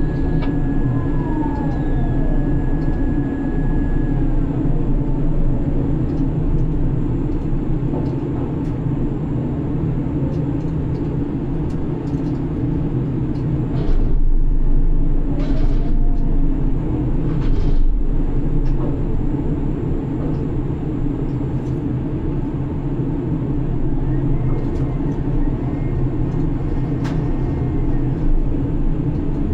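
Steady low drone of a ship's grab crane machinery heard from inside the operator cabin, with faint whines that hold or slide in pitch. The sound swells briefly about halfway through, with a couple of knocks.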